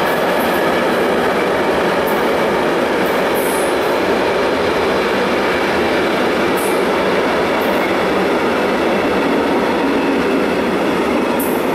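Loaded container and tank wagons of an intermodal freight train rolling past on the rails, a loud, steady rumble of wheels on track with a few brief high-pitched sounds. The last wagons go by near the end.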